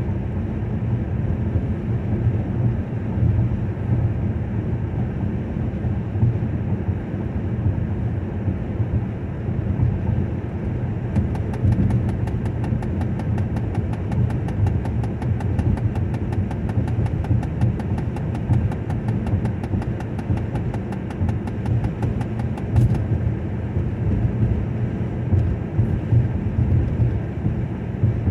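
Steady road noise of a car driving, heard from inside the cabin: a low, even rumble of tyres and engine.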